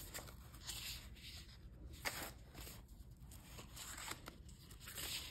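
Faint rustling of sheets of printed craft paper being handled and shuffled, in a few short soft bursts.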